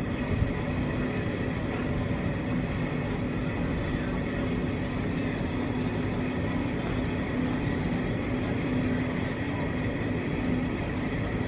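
Steady rumble of a moving vehicle, with a faint steady hum running under it and a small knock about half a second in.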